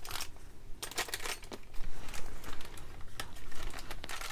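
Handling noise from a leather wallet being turned over and held up: irregular soft rustles and light clicks, with faint crinkling, a little louder about halfway through.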